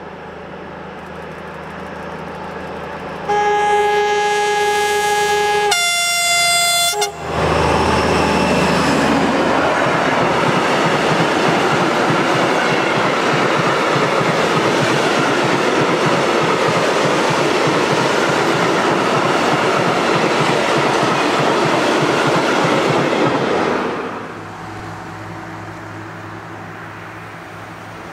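Freight train passing close by: a red Railion diesel-hydraulic locomotive approaches with its engine running and sounds its two-tone horn about three seconds in, a longer low note followed by a shorter higher one. It passes at about seven seconds, followed by a long string of hopper wagons, their wheels clattering and rumbling over the rail joints, until the sound drops away sharply about twenty-four seconds in.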